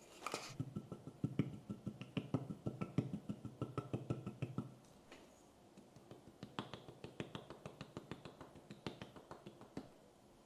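Quick, even tapping, about five light knocks a second, in two runs with a short pause between them.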